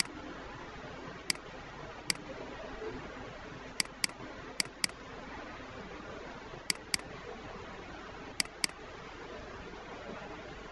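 Computer mouse button clicking: two single clicks, then four quick pairs about a quarter second apart, over a steady faint hiss.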